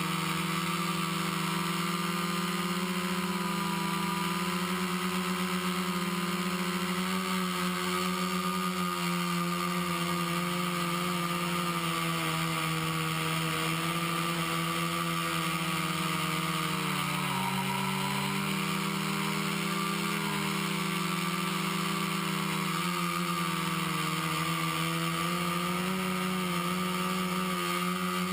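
Hoverthings HT-FPV quadcopter in flight: four Exceed RC Rocket 2215 920Kv brushless motors spinning 10-inch APC props, giving a steady, loud buzzing hum. The pitch wavers with throttle changes and dips briefly about two-thirds of the way through.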